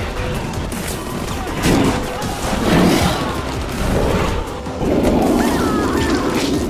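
Movie action soundtrack: gunfire and crashing impacts over dramatic music, coming in several loud bursts.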